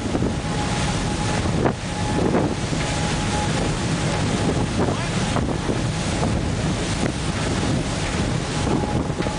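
Steady rushing of wind on a microphone mixed with water noise, an even roar with a few brief gusts.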